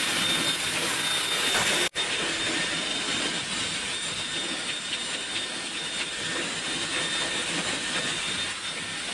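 Dyson Supersonic hair dryer running, blowing a steady rush of air while it dries hair. The sound drops out for an instant about two seconds in and comes straight back.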